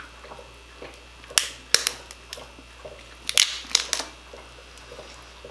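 Lobster tail shell being cracked and pulled apart by hand: a handful of sharp cracks and snaps, the loudest in two pairs about a second and a half and three and a half seconds in.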